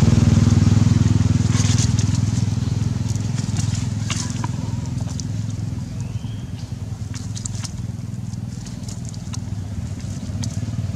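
Engine running steadily with a low, even hum that fades over the first few seconds, overlaid by scattered sharp crackles and clicks.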